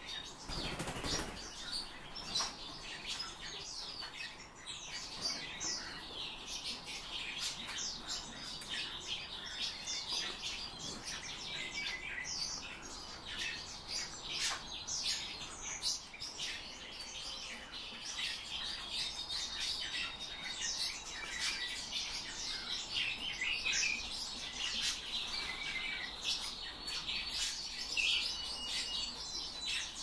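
Small pet birds chirping and twittering constantly in many short high calls, with the whirr of wings as birds fly about; a louder flutter comes about a second in.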